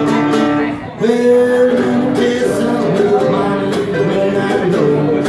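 Live acoustic country-blues music: a cigar box guitar strummed and picked, with long held harmonica notes over it and a second stringed instrument playing along. The music drops out briefly a little before one second in, then comes back in on a held note.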